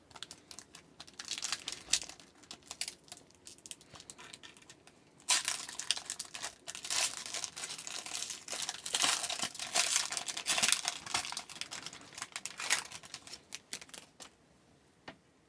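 Foil trading-card pack wrapper crinkling and tearing as the pack is opened. Scattered crackles come first, then about eight seconds of dense crinkling starting about five seconds in.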